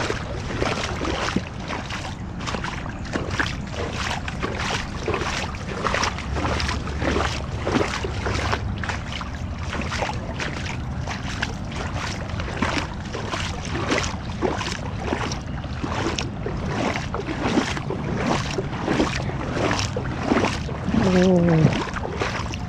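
A car driving through heavy rain on a wet road: a steady low rumble under a continuous hiss of rain and spray, with frequent sharp splashes and drops.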